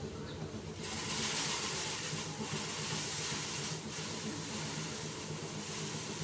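Motorized rice thresher running steadily, a low engine drone under a loud rushing hiss that swells in about a second in.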